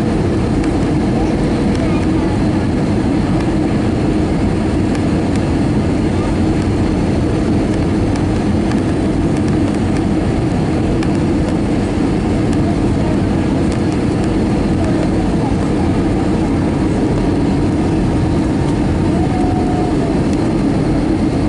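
Steady interior cabin noise of an Airbus A320 descending on approach: engine and airflow rumble, heard from a window seat over the wing, holding even throughout.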